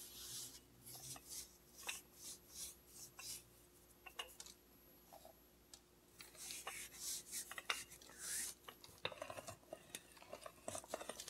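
Wooden rolling pin rolling back and forth over sugar-dusted dough on parchment paper: faint rubbing and paper rustle, about two strokes a second at first, then a few longer swishes.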